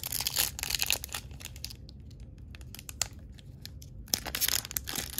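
Foil wrapper of a 2004 Topps baseball card pack crinkling and tearing as it is pulled open by hand, an older pack with a tight seal that is hard to open. The crinkling is densest in the first two seconds, thins out, then picks up again near the end.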